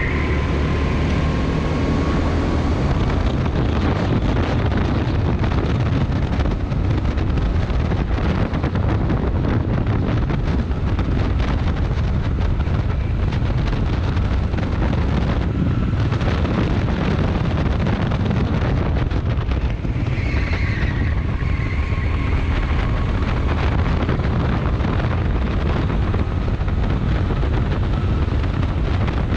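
Rental kart engine running hard at racing speed, heard from the driver's seat with wind buffeting the microphone. A brief high tyre squeal comes in the corners near the start and again about twenty seconds in.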